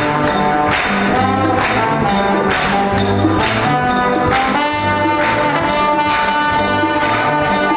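Brass band playing a lively piece, with a trombone soloist out in front over a steady beat of low brass and percussion. A long high note is held from about halfway through.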